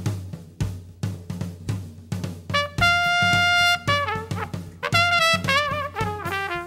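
Big-band swing intro: a drum kit keeps time on snare and hi-hat, then the brass section comes in about a third of the way through with one long held chord and goes on into short punchy phrases over the swing beat.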